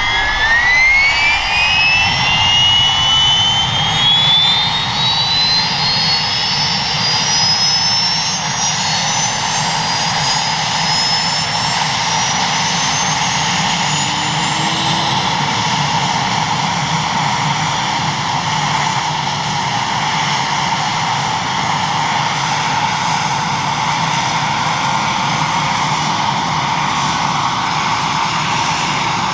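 PZL W-3 Sokol helicopter's turboshaft engine starting up: a high turbine whine that climbs steadily in pitch for about fifteen seconds, then settles into a steady high whine over a low rumble as the main rotor begins to turn.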